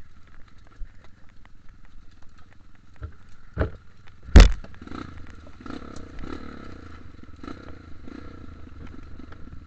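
Off-road dirt bike engine running steadily as the bike rattles over a rough, muddy trail. There is a small knock about three and a half seconds in, then a much louder knock a moment later as the bike jolts hard.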